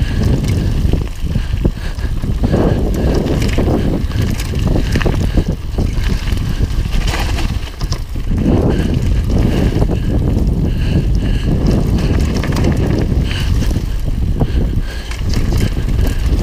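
Mountain bike (UMF Freddy One) riding downhill on a dirt and gravel trail: tyres rumbling over the ground, with wind rushing over a helmet-mounted action camera's microphone. Frequent sharp clicks and knocks from the bike rattling over bumps and stones.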